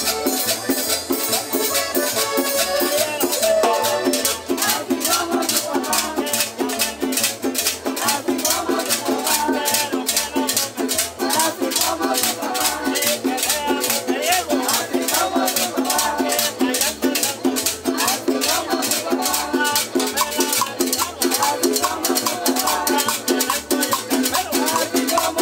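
A live combo band playing Latin dance music, with percussion keeping a steady quick beat of about three to four strokes a second.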